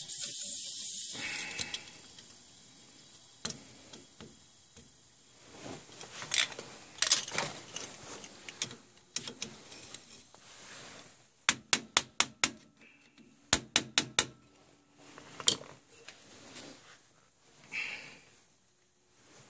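Spirovent air eliminator hissing as air and water spray out of its vent while the boiler system fills, cutting off about a second in. Then scattered sharp metallic clicks and taps of tool work, including two quick runs of four or five clicks.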